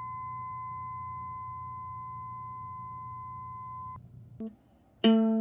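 A 1024 Hz (C) tuning fork rings one steady tone that cuts off suddenly about four seconds in. Near the end a ukulele string is plucked once and rings with many overtones.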